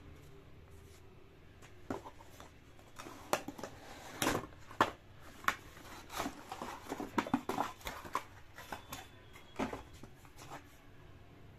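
Cardboard packaging being handled: the inner corrugated cardboard tray of a laptop box is pressed, shifted and lifted out. It makes an irregular string of scrapes, rustles and taps from about two seconds in until near the end.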